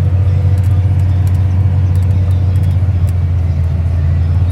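Farm tractor's diesel engine running steadily under load, heard from inside the cab while it pulls a grain cart across the field at about 4 mph. A deep, even drone with faint light ticks over it.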